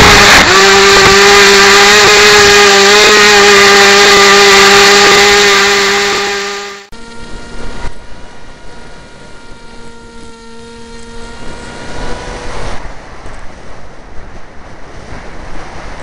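Electric motor and propeller of a Harbor Freight Wild Hawk foam RC airplane whining steadily, loud and close from the plane's own onboard camera. The whine fades over the first six seconds and breaks off; a quieter, steadier motor whine follows and stops about three seconds before the end, leaving only a rough, uneven noise.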